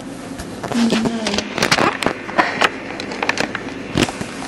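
A séance pointer sliding and clicking across a tabletop board, scraping at its busiest about a second and a half to two and a half seconds in, moving toward an answer to the question just asked.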